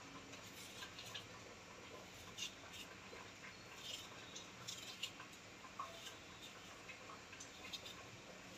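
Faint, irregular small clicks and scrapes of a kitchen knife paring the skin off a raw potato by hand.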